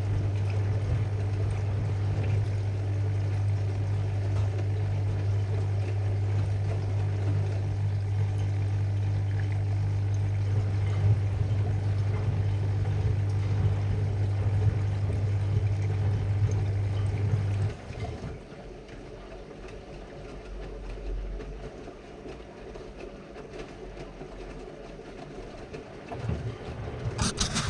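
AEG Lavalogic front-loading washing machine filling with water for its final rinse while the drum turns to distribute the load: a steady mains hum over water noise. About 18 seconds in the hum cuts off, leaving the quieter sound of the machine running.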